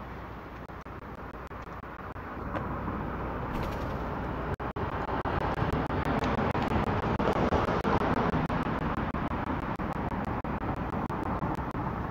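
A road vehicle passing: its rumble swells about two seconds in, is loudest midway and fades toward the end, over a steady low background hum.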